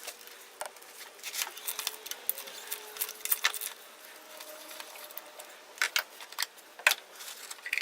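Scattered, irregular clicks and light knocks of a wrench on the oil filter housing cap of a GM Ecotec 2.2L engine and of the cap being handled as it comes off.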